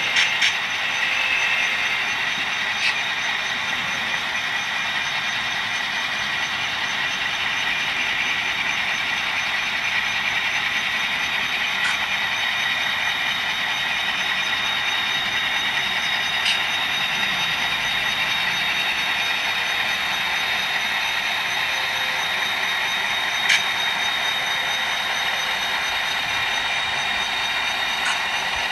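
Soundtraxx Tsunami sound-decoder diesel engine sound from model locomotives, played through their small onboard speakers. It runs steadily and thinly, with few deep tones. A few single sharp clicks are scattered through it.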